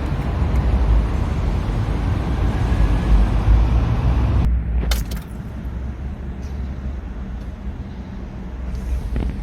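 Citroën DS3 engine cranking on the starter without catching, the cranking stopping suddenly about halfway through, followed by a couple of sharp clicks. A cold no-start that the owner suspects may come from a faulty coolant temperature sensor.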